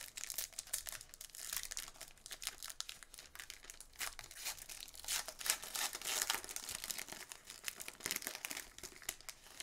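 Plastic wrapper of a 2018-19 Donruss basketball card pack crinkling and tearing as it is peeled open by hand, a dense run of sharp, irregular crackles.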